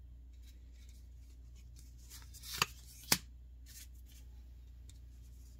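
Trading cards being handled and slid one across another while flipping through a freshly opened booster pack: light rustles and flicks, with two sharper card snaps about halfway through.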